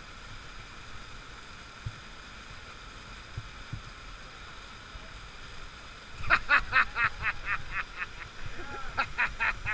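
Steady rush of small waterfalls pouring into a river pool. About six seconds in, a rapid run of short repeated cries, about six a second, breaks in loudly, and a second run comes near the end.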